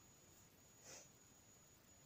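Near silence: room tone with a faint steady high-pitched hiss, and one faint soft rustle about a second in.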